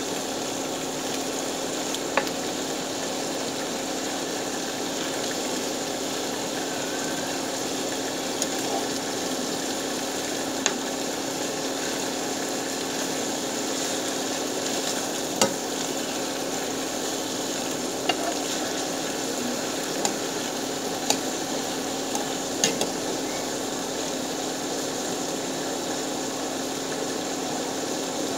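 Galunggong (round scad) frying with garlic in oil in a pan, with a steady sizzle. A spatula knocks and scrapes against the pan about ten times as the fish are stirred and turned.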